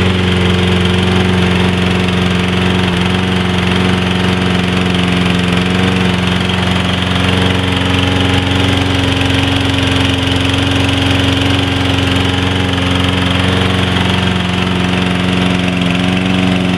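Briggs & Stratton 190cc single-cylinder engine on a Toro Personal Pace walk-behind lawn mower running steadily at constant speed, its carburetor freshly cleaned.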